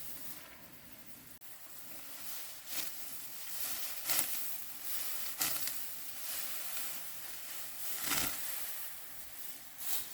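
Rice stalks rustling, with several separate swishing strokes spread unevenly through the stretch.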